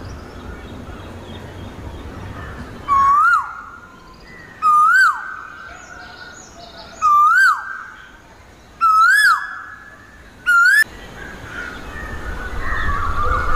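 A loud whistled bird call, repeated five times about every two seconds, each call rising and then dropping sharply in pitch; the last is cut off short.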